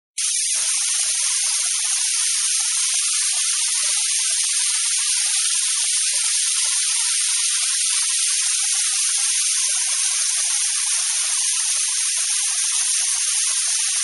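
Small waterfall splashing down a rock face: a steady, even hiss of falling water, all high splash and no low rumble.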